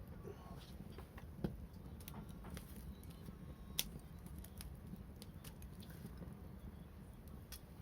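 Wood fire crackling with irregular sharp snaps, two louder pops about one and a half and four seconds in, over a low steady rumble.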